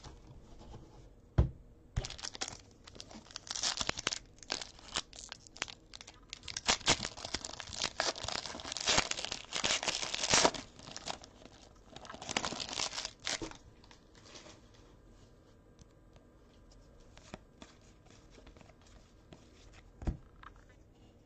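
Trading-card pack wrapper being torn open and crinkled, a run of rustling bursts lasting about ten seconds, then quieter handling with a couple of soft knocks.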